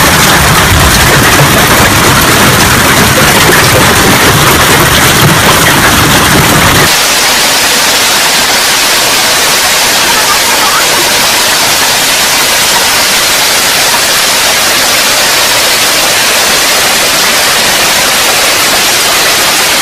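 Hail pelting down hard: a loud, dense, steady hiss of hailstones striking. About seven seconds in the sound changes abruptly to a thinner, brighter hiss with less low rumble.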